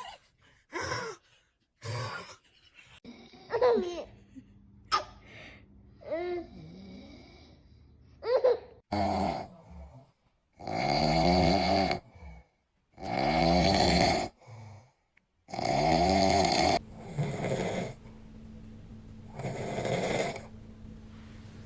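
A man snoring in his sleep: three long, loud snores of a second or two each from about ten seconds in, then a softer fourth near the end. Before them come shorter vocal sounds with sliding pitch, and a faint steady low hum runs underneath.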